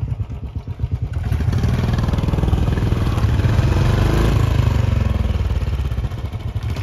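Royal Enfield Bullet 350's single-cylinder engine thumping at low revs, then revved hard from about a second in and held under load as the motorcycle climbs a loose sand slope, the revs rising and falling.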